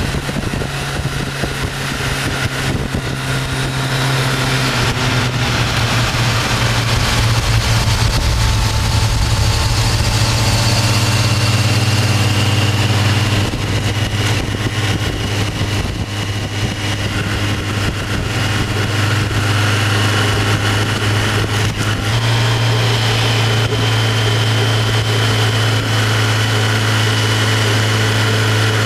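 Motorcycle engine running at road speed, heard from on the bike, over a steady rush of wind and road noise. The engine note shifts a few times, about four seconds in, around the middle and again later on.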